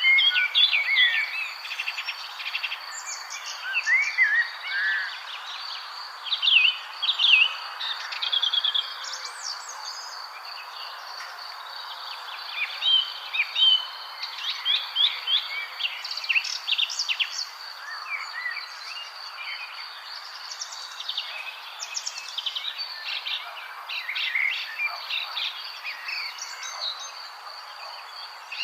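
Several songbirds chirping and singing in short overlapping phrases and trills, over a steady hiss with a constant high insect-like drone.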